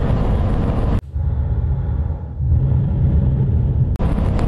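Road and engine noise inside a moving car's cabin. About a second in it cuts abruptly to a duller low rumble, and the fuller rushing noise comes back near the end.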